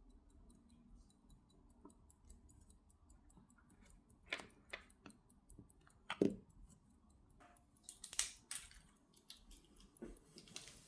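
Faint, scattered clicks and small taps of a metal watch bezel being handled and test-fitted onto a watch case, the loudest a knock about six seconds in.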